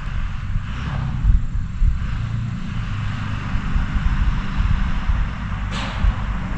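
Low, steady engine rumble of a vehicle pulling in, with wind on the microphone and two brief hissing sweeps about a second in and near the end.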